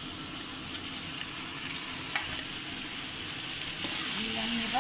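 Yoghurt-marinated chicken pieces sizzling as they drop into hot oil with fried onions and garlic paste in a frying pan over a high flame, stirred with a spatula. A couple of sharp clicks come about two seconds in, and the sizzling grows louder near the end.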